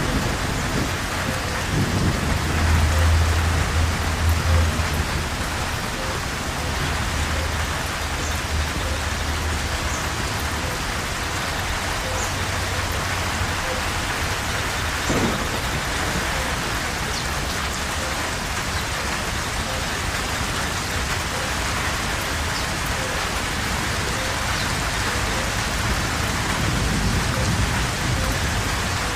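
Steady heavy rain falling, with a low rumble of thunder a couple of seconds in and a fainter rumble near the end.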